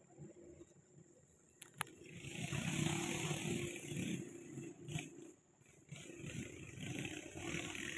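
Diesel engine of a loaded oil-palm truck revving hard in two long surges, the first starting about two seconds in after a sharp click, the second about six seconds in.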